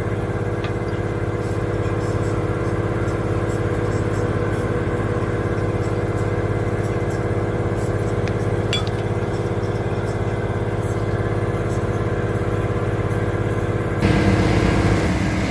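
A vehicle engine idling steadily, with a couple of faint metallic clinks. It grows louder and busier near the end.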